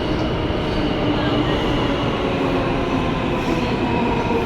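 Subway or metro train running: a steady rumble and rattle with thin, steady whining tones from the wheels and motors.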